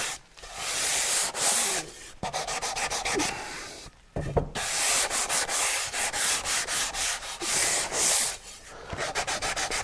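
Sandpaper on a hand sanding block rubbed back and forth along the edges of an oak board, breaking the sharp edges by hand: a series of scratchy strokes, some long and some quick and short, with brief pauses about two and four seconds in.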